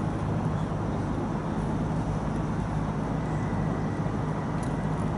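Steady low rumble of idling engines, even and unchanging throughout, with a faint thin whine joining about three seconds in.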